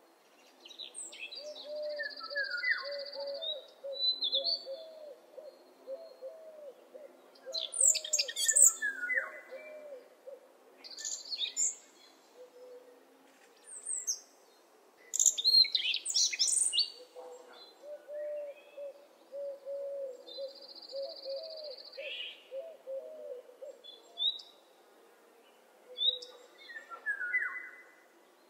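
Morning birdsong: several birds chirping and trilling in high, short phrases, over a rapid run of low repeated notes from another bird that sings twice, near the start and again in the middle.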